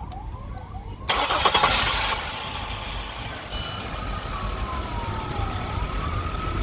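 A 2001 Chevrolet Impala's engine starts about a second in with a short loud burst, then keeps running, after its ignition coil pack and module were replaced. A siren wails in the background, its pitch slowly falling and rising.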